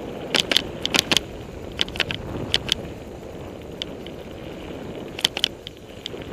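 Mountain bike riding down a rough forest trail: a steady rumble of tyres and wind, broken by irregular clusters of sharp clicks and rattles as the bike clatters over bumps and rocks.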